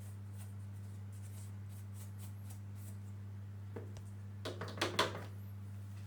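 Small handling noises from reassembly work on the one-wheel: faint ticks, then a short cluster of clicks and rattles of parts and tools about four to five seconds in, over a steady low electrical hum.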